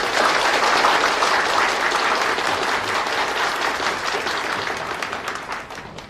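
Audience of a few dozen seated people applauding. The clapping starts abruptly and slowly dies away.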